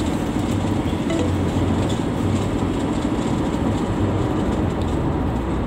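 Steady road and engine noise inside a moving car's cabin: an even, low rumble.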